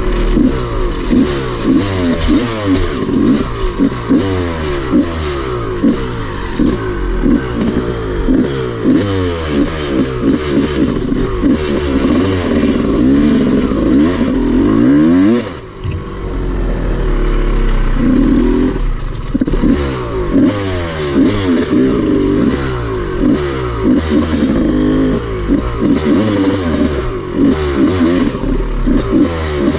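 Dirt bike engine being ridden hard, its pitch rising and falling over and over with throttle and gear changes, over the noise of the ride. The level dips briefly about halfway through.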